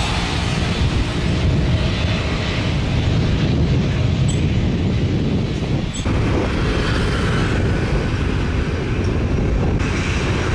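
Jet airliner engines rumbling steadily, a loud low rumble with a brief dip about six seconds in.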